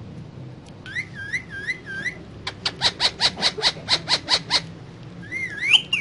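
Indian ringneck parakeet calling: a few wavering whistled notes, then a fast run of short sharp calls at about six a second, lasting about two seconds, then one rising whistle near the end.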